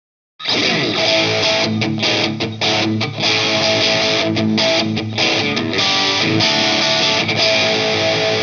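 SLX Hawk Classic 22 HSS electric guitar played through an amp, strummed chords and riffs that start about half a second in with a quick slide down in pitch.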